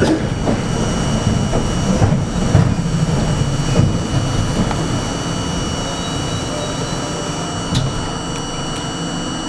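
R42 subway train rolling on an elevated steel track: a steady rumble of wheels on rail with a few sharp clicks. The rumble eases in the second half as the train slows to a stop.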